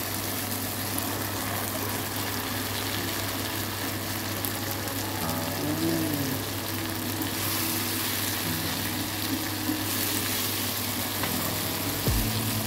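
Chicken livers sizzling in a nonstick frying pan on top of sautéed onion, tomato, garlic and ginger, a steady frying sound. Near the end a wooden spatula starts stirring, with a few scraping knocks.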